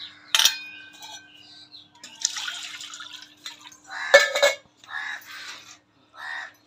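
Stainless steel pots and vessels set down and moved on a concrete floor: a sharp metallic clink with a short ring about half a second in, a hiss of scraping or splashing, and a louder clatter about four seconds in, with splashes of water.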